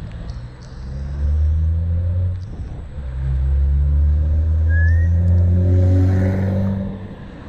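Motor vehicle engine close by, a low drone that swells about a second in, dips briefly, then comes back louder and rises slightly in pitch as it accelerates before fading near the end.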